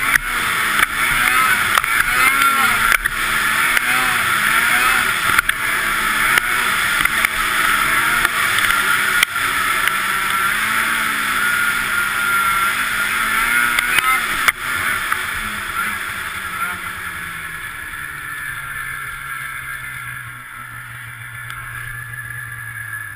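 Ski-Doo snowmobile engine running hard, its revs rising and falling as the sled races across snow. About fifteen seconds in, the throttle eases off and the engine drops to a lower, steadier note as the sled slows.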